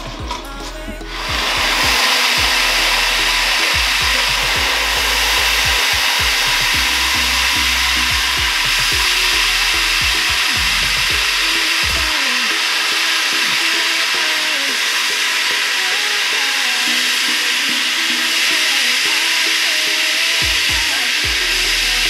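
Veggie Bullet electric food processor motor starting about a second in, then running steadily as potato leaves are fed through it and chopped.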